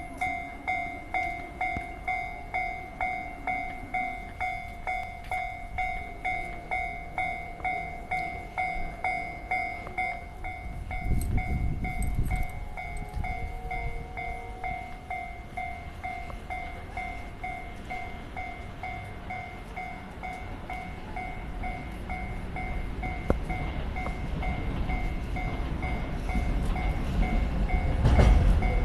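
Japanese level-crossing warning bell ringing, a two-tone electronic ding pulsing about three times every two seconds, which signals an approaching train. A low rumble passes briefly about eleven seconds in, and near the end the low rumble of a train grows loud as it nears the crossing.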